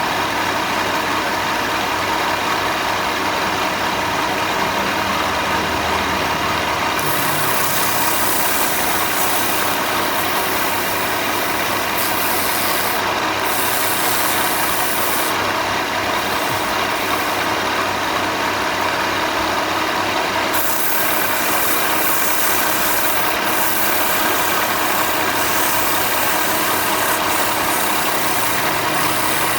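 A machine motor running steadily without a break.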